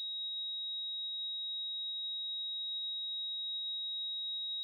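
A single steady, high-pitched electronic sine tone, held unchanged and with nothing else under it.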